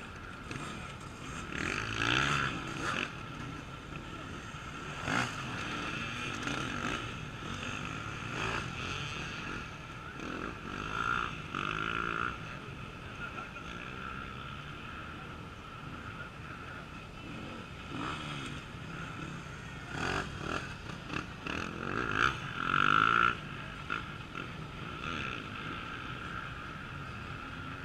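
Off-road racing motorcycles revving hard and easing off as several bikes pass one after another, the engine notes repeatedly rising and falling over a steady background of distant engines.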